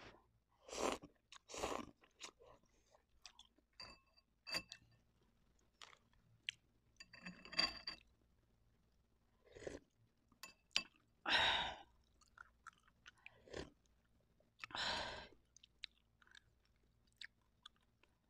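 Close-up mouth sounds of eating Indomie instant noodle soup: a handful of short, noisy slurps of noodles and broth, with chewing and small clicks in between.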